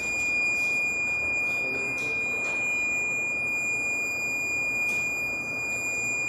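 Fire alarm system buzzer sounding one steady, unbroken high-pitched tone.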